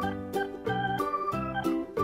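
Background keyboard music, a run of short chords changing several times a second.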